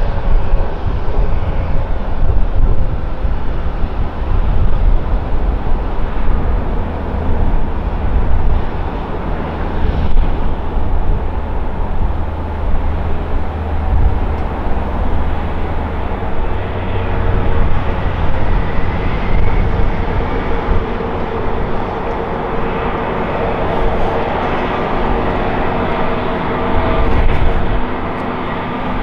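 Airbus A321neo's two CFM LEAP-1A turbofans running at low power as the jet rolls out along the runway after landing: a steady rumble with a few steady whine tones that grow louder toward the end as the aircraft comes nearer.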